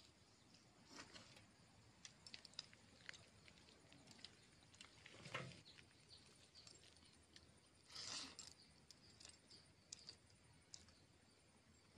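Faint sounds of eating by hand: chewing, and fingers mixing watered rice (pani bhat) in a steel bowl. A scatter of soft clicks and smacks, with a few louder moments about a second in, near the middle and about eight seconds in.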